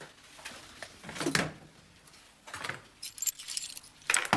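Pieces of broken glass clinking as they are picked up off the kitchen floor and dropped into a plastic washing-up bowl: a few separate clinks and rattles, the loudest near the end.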